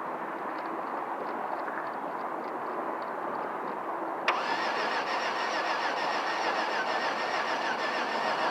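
2005 Chevrolet Venture's 3.4-litre V6 being cranked by its starter without catching: a steady noise, then a sharp click about four seconds in, followed by steady cranking with an even, wavering rhythm and no start.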